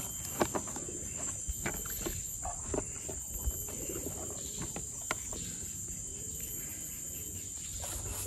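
Soft wet slaps and rubbing of a hand working turmeric powder into raw snakehead fish on a tray, with scattered small taps as the fish are picked up and set down. Under it runs a steady high-pitched drone of insects.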